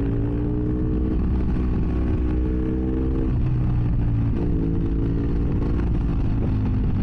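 BMW F800S parallel-twin engine running through a GPR Furore exhaust with its db-killer removed, heard from inside the rider's helmet. Its pitch climbs under throttle, drops sharply about three seconds in and again near four and a half seconds, as at gear changes, then climbs again.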